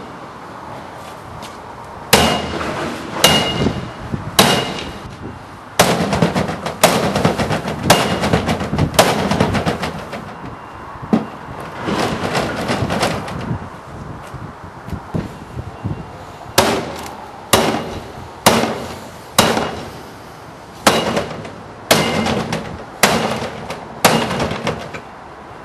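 Baseball bat striking a Glasdon C-Thru 180 Trio recycling bin over and over in a durability test: a series of hard blows on its plastic lid and clear plastic body, mostly about one a second with a denser run of hits in the middle, some of them leaving a short high ring.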